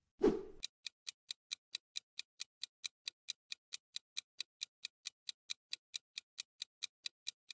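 Clock-ticking countdown sound effect marking the thinking time for a quiz question: evenly spaced sharp ticks, about four and a half a second. A brief, louder burst of sound comes just before the ticking begins.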